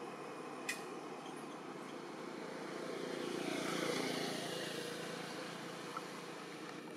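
A motor vehicle passing: a steady drone that swells to a peak about four seconds in, dropping slightly in pitch, then fades away. A single sharp click sounds just under a second in.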